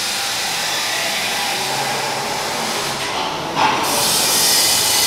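Steady workshop background noise: a continuous hiss of machinery and air. About three and a half seconds in, a louder, sharper hiss starts suddenly and keeps on.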